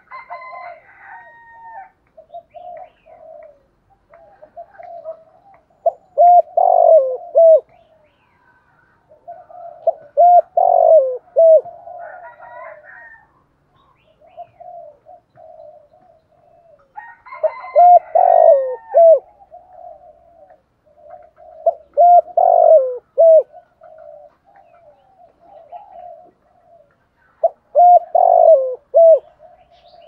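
Spotted dove cooing: loud coo phrases repeated about every four to six seconds, with softer runs of cooing between them. This is the dove's song, used as a decoy call to draw in wild doves.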